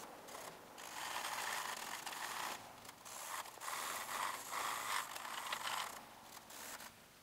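Graphite pencil hatching across drawing paper, sped up tenfold into a fast, rasping scratch like a ratchet. It comes in uneven bursts, louder from about a second in until about six seconds.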